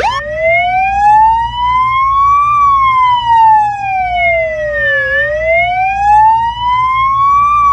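Emergency-vehicle siren sound effect in a slow wail: the pitch rises for about two and a half seconds, falls for about as long, then rises again near the end.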